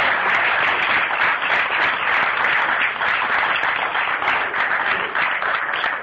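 A room full of people applauding steadily.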